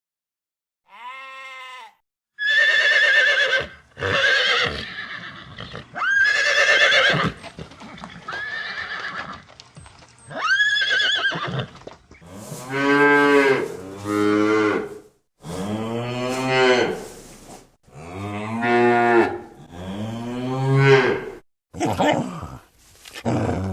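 Farm animals calling: a run of high-pitched calls, then from about halfway through a series of lower calls about a second long each, rising and falling in pitch.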